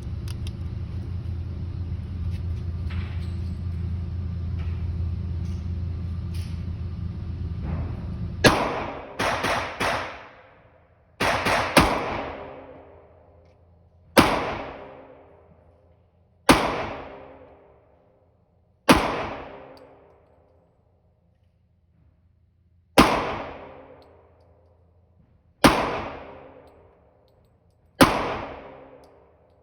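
A steady low rumble, then about eight seconds in a series of handgun shots, each a sharp crack with a long echoing tail. The first few come in quick pairs, the rest singly every two to three seconds.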